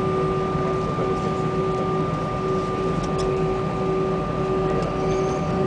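Cabin noise of an Airbus A320-family jet's engines at takeoff thrust, heard from a window seat over the wing: a steady rush with two steady tones running through it.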